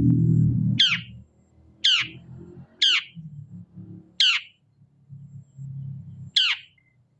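Long-tailed shrike (cendet) giving five short, harsh calls, each a quick downward sweep, spaced one to two seconds apart over a low rumble.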